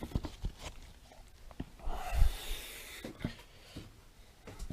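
Handling noise: scattered light clicks and knocks of things being moved about, with a brief low thump about two seconds in.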